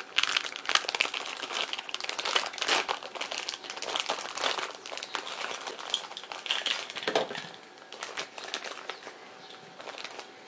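Thin clear plastic packaging bag crinkling as it is handled, with dense, irregular crackling that thins out over the last couple of seconds.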